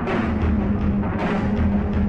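Background music: a dense, steady track with held low notes.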